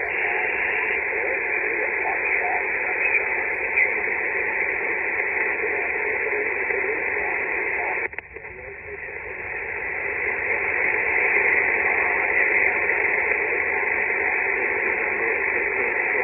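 Shortwave ham radio receiver tuned to the 20-metre band on single sideband, giving out steady hiss and static, with any stations too weak to stand out: poor band conditions. About halfway through there is a click, the noise drops away and then slowly builds back up.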